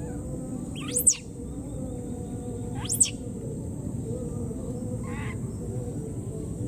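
Baby monkey giving two short, shrill squeals about two seconds apart, each sweeping sharply up in pitch, then a fainter cry about five seconds in, over a steady high-pitched background tone.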